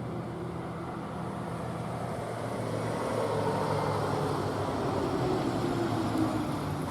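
A road vehicle going by, its noise swelling from about three seconds in, over a steady low hum.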